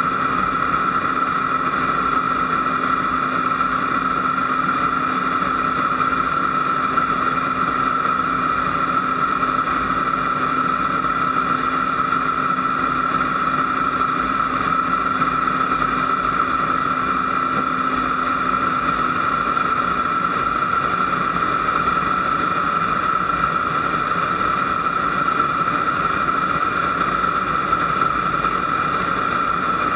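Aero L-29 Delfin's single turbojet engine at takeoff power, heard from inside the cockpit, as the jet trainer runs down the runway, lifts off and climbs. A steady high whine throughout, with a lower hum that fades out about two-thirds of the way through.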